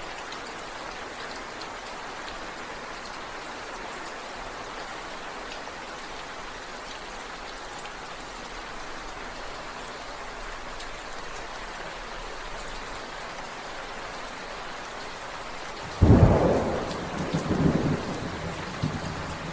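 Steady rainfall hissing evenly, then about sixteen seconds in a sudden loud thunderclap that rolls on as rumbling thunder.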